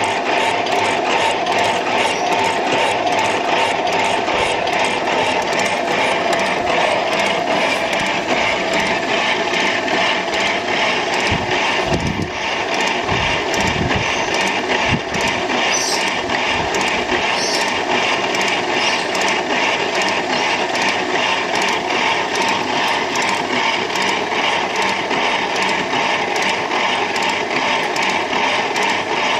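Varnamo metal shaper running, its ram stroking back and forth as the tool takes cuts across a round steel bar: a steady machine clatter with fast regular ticking. A few dull knocks come about halfway through.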